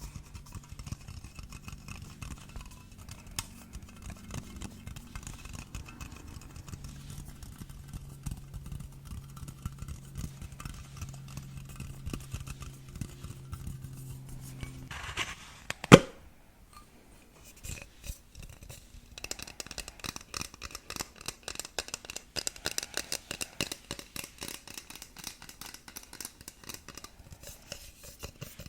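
Rapid light tapping and scratching on a hard object, with one sharp loud knock about halfway through; after it the tapping turns quicker and brighter.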